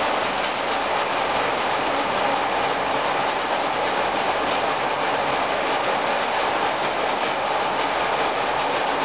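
Heavy rain pouring down, a steady, even hiss with no thunder clap.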